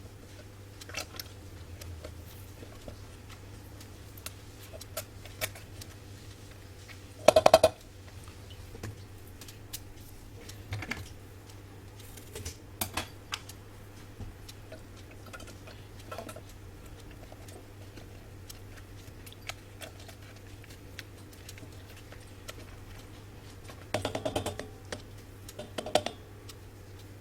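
Scattered light clicks and taps, with a short, louder rattling clatter about seven seconds in and another cluster of clatters near the end, over a steady low hum.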